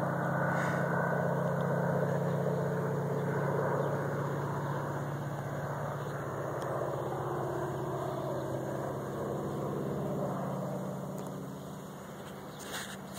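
Crop duster airplane's engine droning steadily as it flies low over the fields, fading away near the end.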